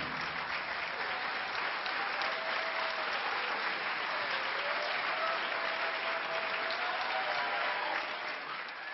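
Theatre audience applauding steadily as the last of the orchestral music dies away, with a faint drawn-out cheer over the clapping. The applause fades out near the end.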